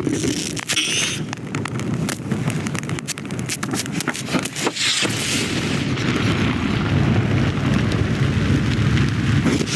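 Film sound effects of a blaze: a steady rushing fire with many sharp crackles and pops, and a low rumble that grows stronger about six seconds in.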